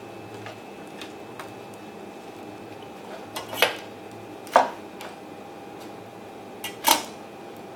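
A kitchen knife knocking sharply on a cutting board while lettuce is trimmed: a few faint clicks, then three loud knocks over about three seconds from midway. A steady low hum runs under it.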